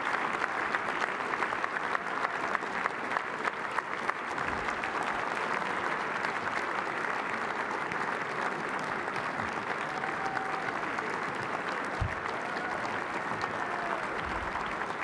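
Large audience applauding steadily, a dense clatter of many hands clapping at once. A dull low thump about twelve seconds in.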